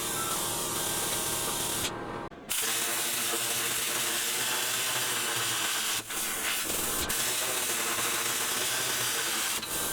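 Steady hissing noise, with a short break about two seconds in and a brief dip about six seconds in.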